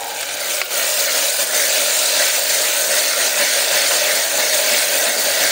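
Onion-tomato masala with freshly added ginger-garlic paste sizzling in hot oil in an open pressure cooker while being stirred with a spatula. A steady, loud hiss that swells over the first second.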